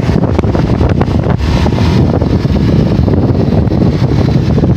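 Wind rushing and buffeting over the microphone of a camera on a moving motorcycle, with the motorcycle's engine running underneath.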